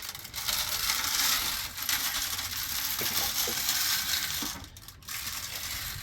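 A steady rattling hiss, breaking off briefly about five seconds in and then starting again.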